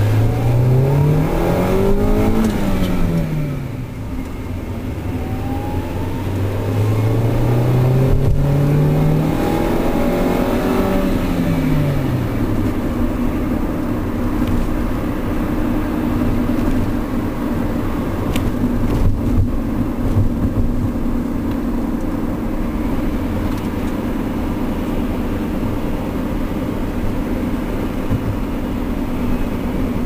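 Car engine heard from inside the closed cabin, revving up and easing off twice in the first dozen seconds as the car accelerates and slows, then running at a steady pitch while cruising.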